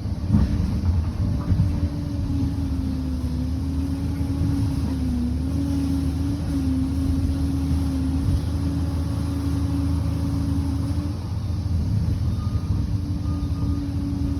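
Liebherr 746 crawler bulldozer running with a steady low drone and a wavering whine that stops about eleven seconds in, with a few clanks in the first two seconds.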